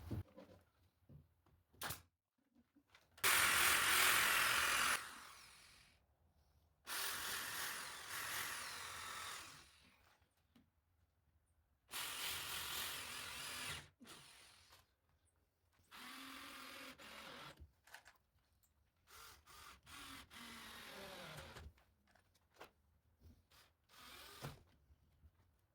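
Handheld electric power tool run in five short bursts of one to three seconds each, with pauses between. The first burst is the loudest, and the later ones wind down in pitch as the trigger is released.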